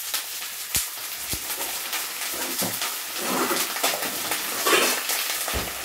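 Hot water poured from a kettle into a hot wok of stir-frying broccoli, sizzling and hissing as it hits the pan, louder for a couple of seconds in the middle. A few light knocks of utensils on the pan.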